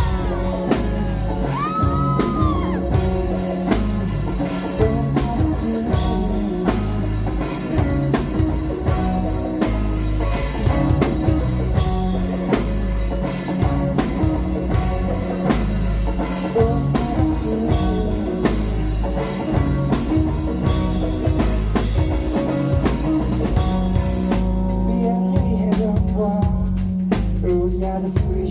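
A song with a drum kit, bass and guitar, and short vocal lines near the start and again near the end.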